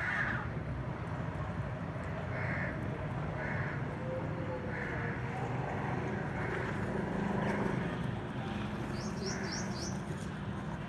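A crow cawing repeatedly, short harsh calls every second or two, with four quick high chirps near the end, over a steady low background hum and faint distant voices.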